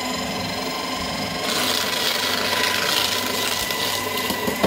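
Aurora AS890C cheap paper shredder running with a steady motor whine as it pulls in two sheets of paper held together with paper clips. From about a second and a half in, a loud rasping of paper and clips being cut rises over the motor, then eases near the end. The clips go through without jamming.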